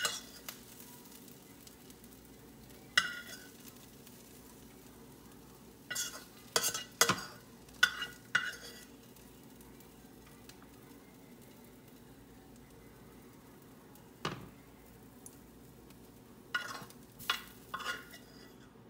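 A metal spoon scraping and clinking against a frying pan as sautéed onions and peppers are scooped out, in scattered strokes with a quick run of them near the middle and a few more near the end. A faint steady sizzle from the pan runs underneath.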